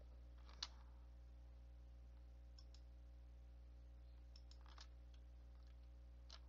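Near silence: a steady low hum with a few faint computer mouse and keyboard clicks, the sharpest about half a second in.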